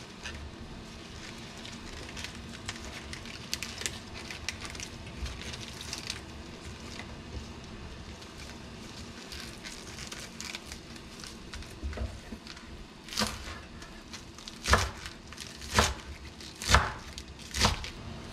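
Fresh spinach leaves rustling and crinkling as gloved hands gather and bunch them on a wooden cutting board. Near the end come five thuds about a second apart, the loudest sounds here.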